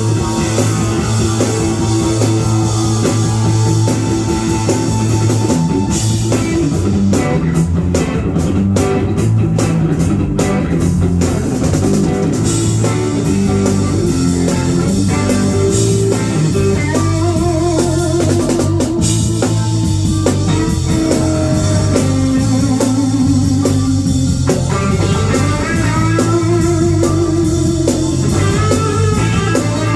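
Live band playing an instrumental groove: electric guitar over a drum kit and a steadily moving bass line, with held, wavering lead notes.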